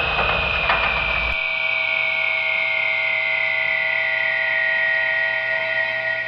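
Synthesized UFO sound effect: a high electronic whine, layered with several steady tones, slowly falling in pitch, over a low rumble that cuts off suddenly about a second and a half in.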